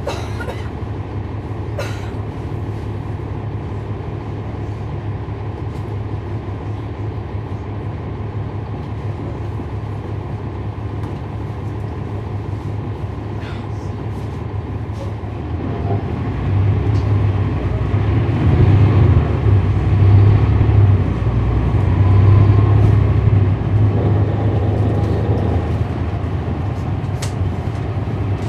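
A 2011 NABI 416.15 transit bus with a Cummins ISL9 diesel, heard from inside the cabin. The engine runs at a steady low drone, then about halfway through grows louder as the bus accelerates, and eases off a few seconds before the end. Occasional light clicks and rattles come from the interior.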